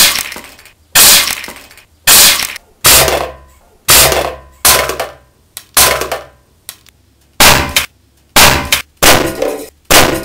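A rapid series of about eleven sharp crashing impacts, roughly one a second, each ringing out briefly before the next.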